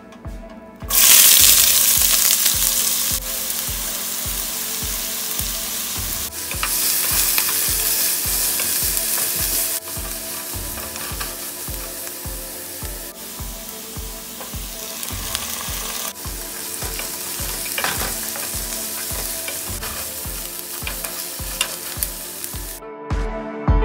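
Chopped onions hitting hot oil in a pot and frying with a loud sizzle that starts about a second in. A wooden spatula stirs them, knocking and scraping against the pot about two to three times a second.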